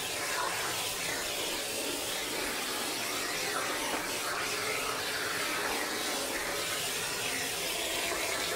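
Water spraying steadily onto a dog's wet, soapy coat as the shampoo is rinsed off, an even hiss.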